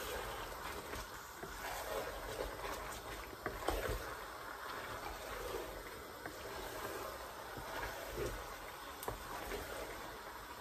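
Wooden spoon stirring thick okra soup in a large pot: continuous wet stirring and sloshing, with a few light knocks.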